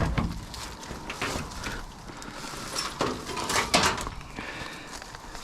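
Footsteps with scattered knocks and scrapes on loose debris and steel, a few sharp knocks standing out, the loudest right at the start and a cluster about three to four seconds in.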